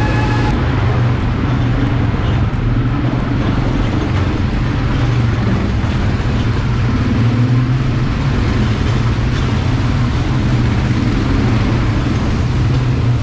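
ATV engine running steadily with a constant low hum while riding, with rumbling noise over it.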